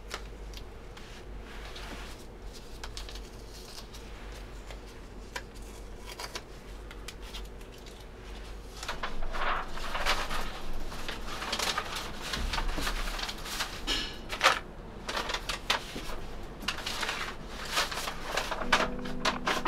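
Irregular clicks, taps and knocks of small objects being handled, over a low steady hum; they get louder about nine seconds in. Music comes in near the end.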